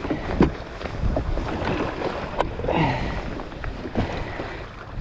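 Gear being handled on a plastic kayak hull: a few sharp knocks and rattles as things are set in place, over steady wind on the microphone.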